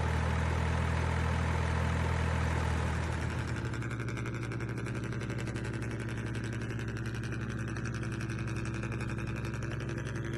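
Engine sound of an RC model vehicle running steadily with a deep hum. About three seconds in it drops to a quieter, rapid rattling run.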